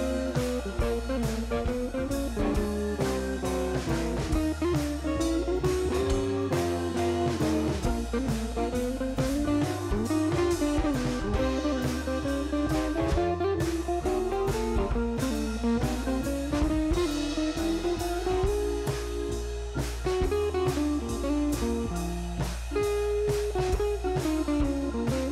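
Background music with a wandering melody over bass and a steady drum beat.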